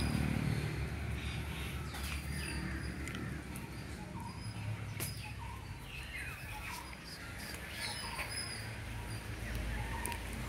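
Birds chirping, with short whistled calls scattered through, over a low steady rumble.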